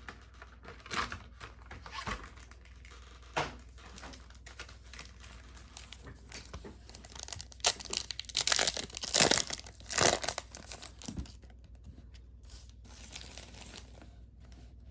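A foil booster pack being torn open and crinkled in the hands, with the loudest tearing and crinkling in a burst of several strokes about halfway through, and lighter rustling and card handling before and after.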